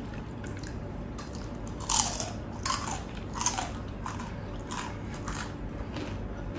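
Close bites and chewing of crisp, crunchy food: a run of sharp crunches, the loudest about two seconds in, then several more at roughly half-second to one-second gaps.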